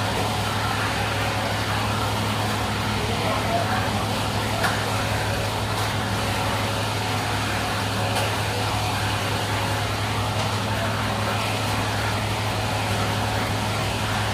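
Screw-type peanut oil press running, its machinery giving a steady low hum with a few faint ticks.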